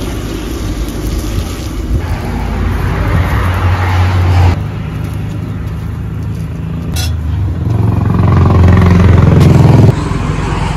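Motor vehicle engine growing louder twice, each time broken off abruptly.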